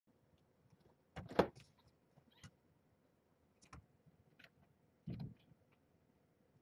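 A few faint knocks and clicks. The loudest comes about a second in, and there is a duller thud a little after five seconds.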